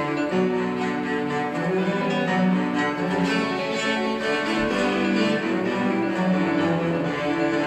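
Cello ensemble of about a dozen cellos playing a dance piece, bowed notes moving in several parts at once.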